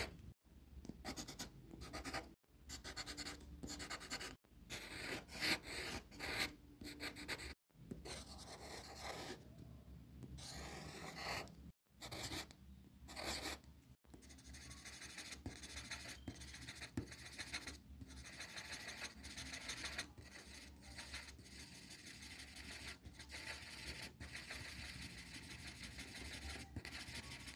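Pencil scratching on paper in quick strokes, drawing lines. The first half is broken by several sudden cut-offs. From about halfway it becomes a steady run of rapid back-and-forth strokes as the drawing is shaded.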